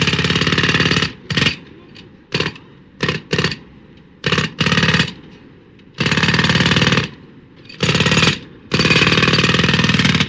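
Pneumatic jackhammer hammering with rapid blows: a steady run for about a second, then several short bursts, then longer runs of a second or two.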